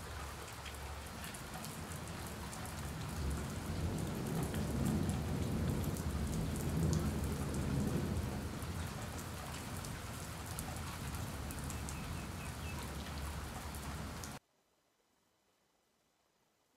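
Rain falling and pattering on a wet concrete roof, many small drop impacts over a steady hiss, with a low rumble swelling in the middle. It cuts off suddenly about fourteen seconds in.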